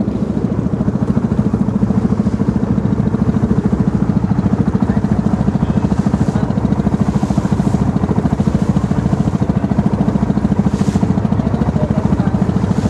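Boat engine running steadily under way, with a fast, even beat.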